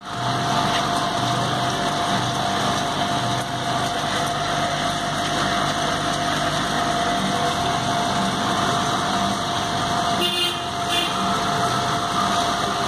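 Vibratory bowl feeder running, its electromagnetic drive buzzing steadily while a load of plastic caps rattles and chatters in the bowl and along its track.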